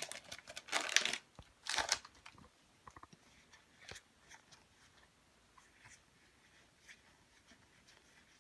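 Foil Pokémon booster-pack wrapper crinkling as the trading cards are pulled out, in a few loud bursts over the first two seconds, then only faint occasional rustles and clicks of the cards being handled.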